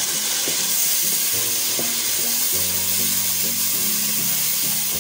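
Onion-tomato masala sizzling hard in hot oil in a pan, water being added to it, with a spatula stirring and giving a few light knocks.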